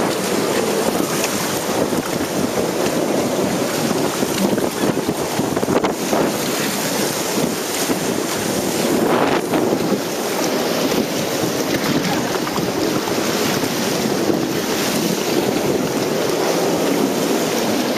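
Steady rushing of water, with wind buffeting the microphone.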